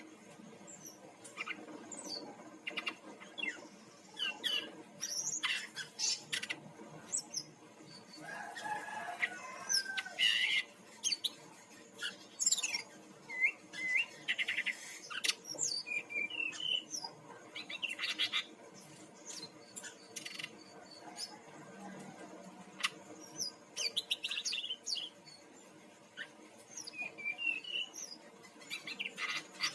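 Brown-chested jungle flycatcher singing a fast, varied song of short chirps, whistled glides and trills in irregular bursts, over a faint steady low hum.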